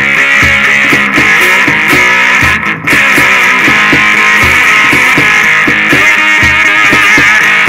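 Three-string electric cigar box guitar with a Lace slim pickup playing a blues-rock riff, with notes picked in quick succession.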